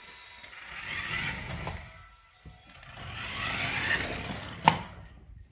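A remote-control toy car running in two short bursts, its small electric motor and wheels whirring up and dying away, the second run louder. A sharp knock near the end, such as the car bumping into something.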